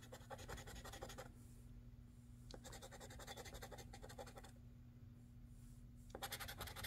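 Scraping the coating off a scratch-off lottery ticket. The scratching comes in three short spells of rapid strokes, at the start, in the middle and near the end, with short pauses between them.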